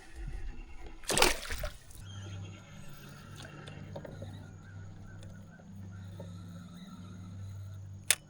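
A splash of water lasting about a second, starting about a second in, then a low steady hum, with one sharp click near the end.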